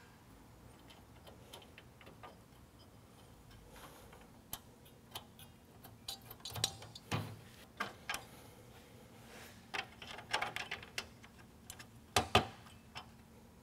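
Scattered small clicks and taps of metal brackets and nuts being fitted by hand onto the studs of a truck grille, irregularly spaced, with louder knocks about seven seconds and twelve seconds in.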